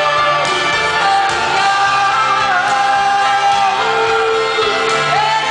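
Live band performance: a female lead singer holds long, bending sung notes over electric guitars and drums, recorded from within the audience in a large hall.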